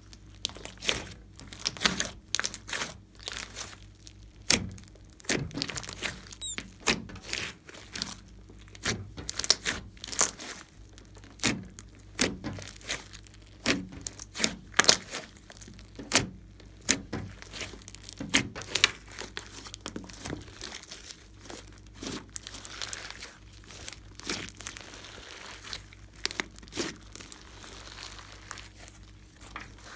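Glossy slime being squeezed, folded and stretched by hand, giving irregular wet clicks, pops and squelches, several a second.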